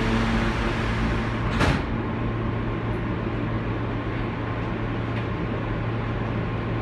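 Steady hum and rumble inside a Kawasaki R160B subway car with Siemens propulsion, standing or barely moving at a station, with a single sharp clack about one and a half seconds in. After the clack the hiss dies down and the low hum goes on.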